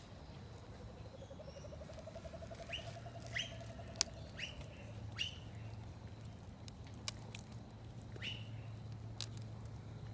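Crisp clicks of fleshy succulent leaves being snapped off the stem, a few sharp snaps with the loudest about four seconds in. Birds chirp with short notes among them.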